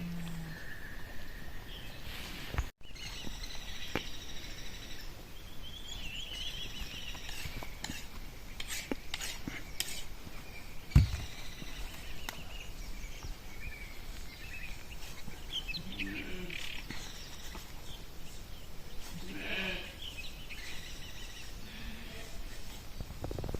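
Sheep bleating, three short calls in the second half, over faint high chirping. A single sharp thump comes about halfway through.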